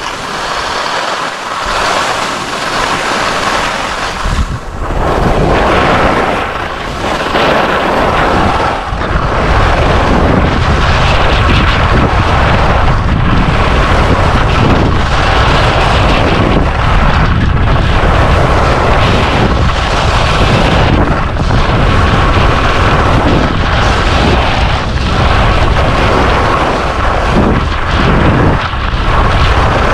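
Wind rushing over the microphone of a skier moving at speed, with Black Crows Atris skis scraping on hard-packed groomed snow, the hiss rising and falling with each turn. It grows louder over the first several seconds.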